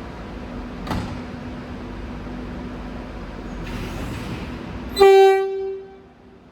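Metro X'Trapolis electric train running with a steady rumble, then about five seconds in a single short, loud blast of its low-note horn that dies away within about a second.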